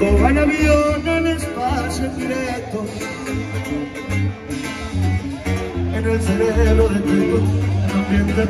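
Music: singing over guitar and a heavy bass line.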